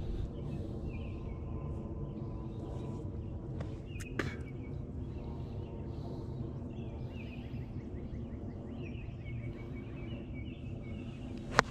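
Birds chirping over steady outdoor background noise, then near the end a single sharp click: a golf iron striking the ball off the tee.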